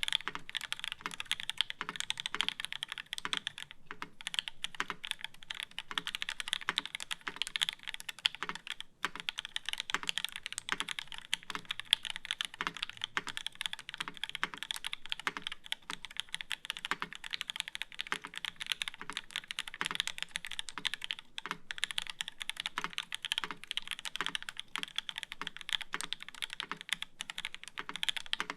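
Continuous fast typing on a UTD 360c mechanical keyboard with H1 switches, an aluminium plate and GMK keycaps, with no sound dampening: an unbroken stream of key clacks.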